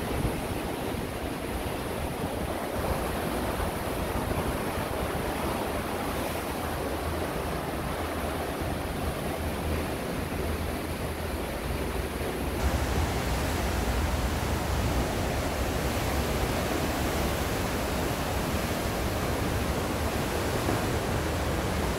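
Steady rushing noise of wind and sea on a ship's open deck. It grows louder and fuller about halfway through.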